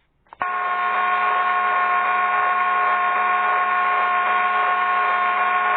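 A steady electric whirring hum with a high, even whine, starting about half a second in: a ceiling fan switched on and running.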